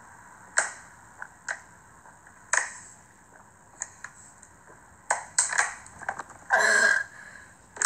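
A boy chugging water from a plastic water bottle: a few scattered gulping clicks, then a cluster of clicks and a loud half-second crinkle of the plastic bottle as it is lowered, about six and a half seconds in.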